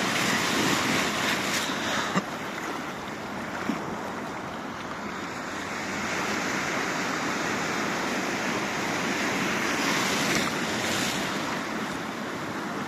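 Small sea waves washing and lapping in the shallows, a steady rush of water that swells a little about halfway through.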